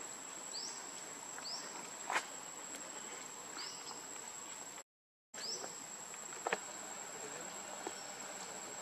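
Outdoor ambience of a steady, high insect drone, with short rising chirps repeating about once a second. Two sharp clicks, about two seconds in and near six and a half seconds, are the loudest sounds. The sound drops out for half a second just before five seconds in.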